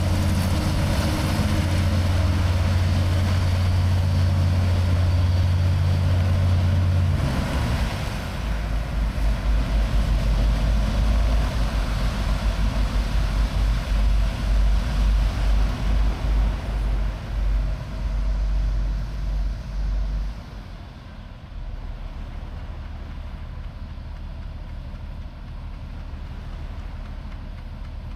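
Griffon Hoverwork 12000TD hovercraft's engines and propulsion fans running with a loud steady low hum, then winding down about seven seconds in to a lower, pulsing throb as the craft powers down on the landing pad. The throb cuts off sharply about twenty seconds in, leaving a quieter steady low hum.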